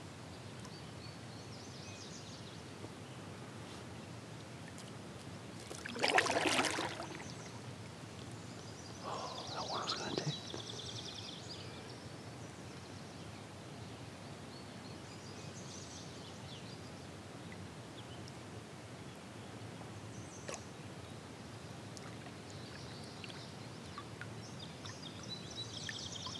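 Quiet outdoor lake ambience heard from a kayak, with faint birds chirping now and then. About six seconds in there is a brief loud swish, and a weaker one follows a few seconds later.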